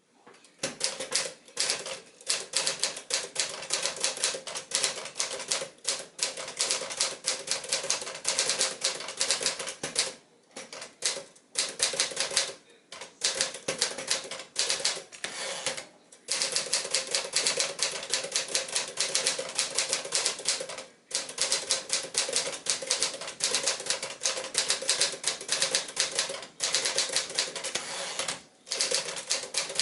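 Tower Commander portable typewriter, a Smith-Corona Sterling under Sears bodywork, being typed on quickly. Rapid keystroke clacks come in long runs, broken by short pauses every few seconds.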